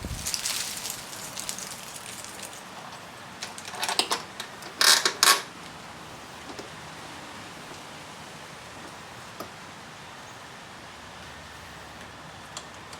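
Metal parts and hardware being handled and knocked together: a rustling scuffle at the start, a few clicks around four seconds in, then a short cluster of loud metallic clinks about five seconds in.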